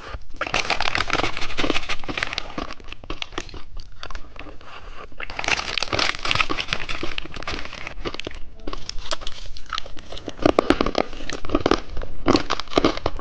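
Dense crackling and crinkling in three long bursts, from popping candy being dipped into and eaten and its packet handled close to the microphone.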